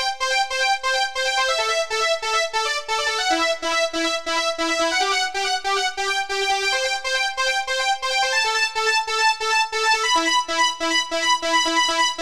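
MIDI rendition of the Nokia 1208 ringtone melody played with General MIDI soundfont keyboard and synthesizer tones, a steady stream of short repeated notes whose pattern shifts every few seconds.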